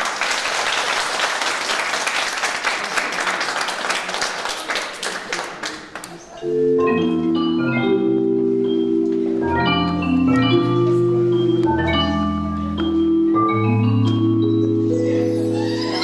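Audience applause that fades out over the first six seconds. Then instrumental music starts abruptly: a melody of short bright notes over held low chords.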